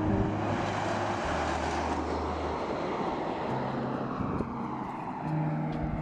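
A car passing at highway speed: tyre and wind noise swells over the first couple of seconds, then fades away with a slowly falling pitch. Background music with sustained bass notes underneath.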